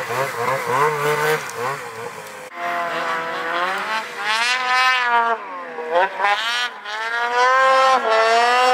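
Snowmobile engines revving hard in deep snow: quick repeated throttle blips at first, then after an abrupt change about two and a half seconds in, longer revs whose pitch climbs, sags and climbs again, loudest near the end.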